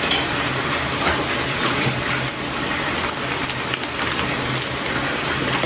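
Chicken pieces frying in a hot pan, giving a steady sizzle.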